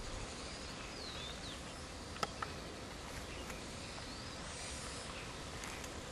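Quiet outdoor ambience on a wooded hillside: a steady hiss with a few faint, short chirps, and two sharp clicks about two seconds in.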